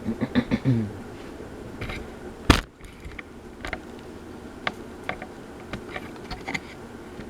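52-inch Hampton Bay Quick Connect ceiling fan running with a steady low hum. A short, low stuttering sound comes in the first second, a single sharp knock about two and a half seconds in, and scattered light clicks after it.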